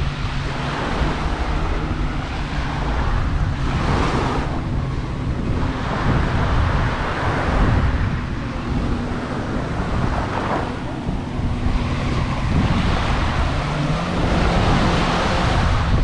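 Sea waves breaking and washing up the sand, the wash surging every few seconds, under a constant low rumble of wind on the microphone.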